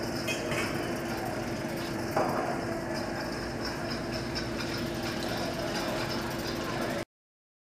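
Steady hum and background noise of an airport terminal gate area, with one steady tone held throughout. A short knock sounds about two seconds in, and the sound cuts off suddenly near the end.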